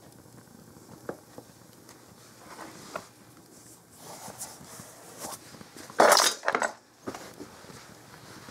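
Open fire on a fireplace grate burning a canvas shoe, crackling with scattered small pops. About six seconds in comes a brief loud clatter, the loudest sound, with a second knock just after it.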